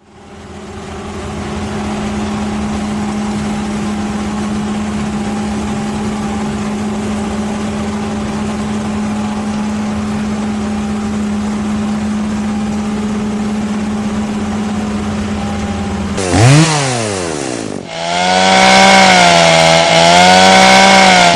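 Chainsaw engine running at a steady high speed, then revving up and down quickly a few times about sixteen seconds in, and running louder with a wavering pitch near the end.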